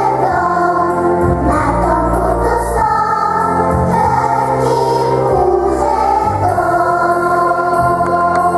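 A children's choir of young girls singing together over instrumental accompaniment with a steady bass, many of the sung notes held long.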